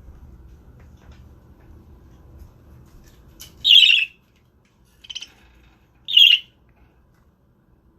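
Budgerigar giving three short, harsh calls: a loud one about halfway through, a weaker one a second later, and another loud one a second after that, over a faint low hum.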